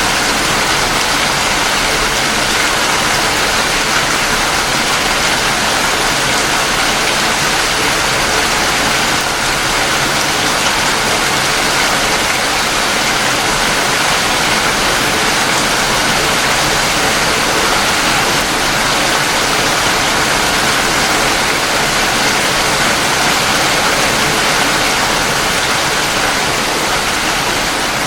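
Heavy rain falling steadily: a dense, even hiss of countless drops with no pauses or single drops standing out.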